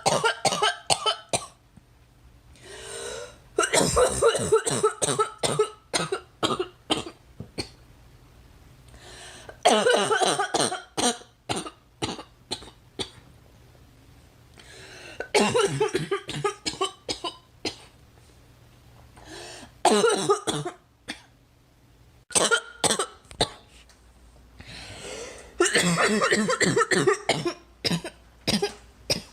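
A girl coughing hard in repeated fits of rapid coughs, about seven bouts, with a drawn-in breath between fits.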